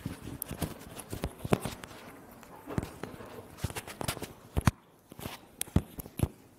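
Irregular clicks, knocks and rustles of things being handled at a lectern close to its microphone, with a few sharper knocks in the second half.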